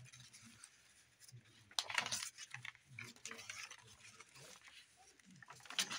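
Pages of a handmade paper journal being turned by hand: faint paper rustles and light taps, with the loudest rustle about two seconds in and another near the end.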